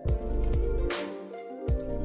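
Background music with a beat and a deep bass line.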